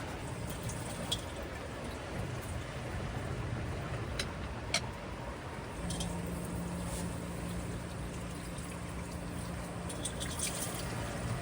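Water trickling and dripping, with a few light clicks and a low steady hum that comes in about halfway through.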